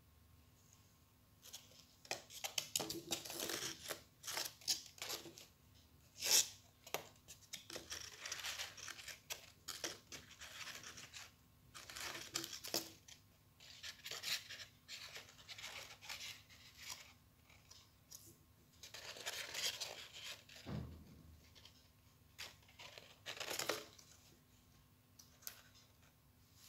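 Folded paper rustling and crackling in irregular bursts as the points of a paper star are pinched and creased by hand.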